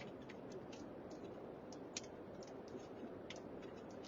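First raindrops ticking on a moving vehicle's windshield and roof as it drives into a thunderstorm's rain, in irregular clicks several times a second. Under them is a steady low hum of road noise.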